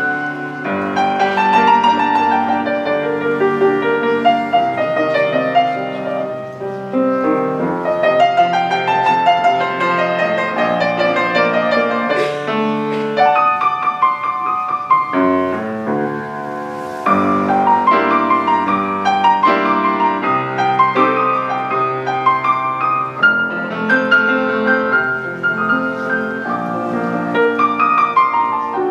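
Grand piano played solo: a moving melody over held chords.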